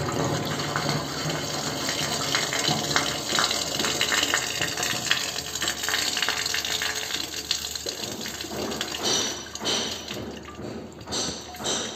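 Water running down a round drain hole, swirling as it drains. About eight seconds in the flow drops off into irregular trickles and drips as the drain empties.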